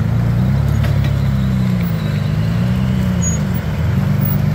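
Rock crawler buggy's engine revving up and down as it works over rocks. The pitch rises and falls every second or so.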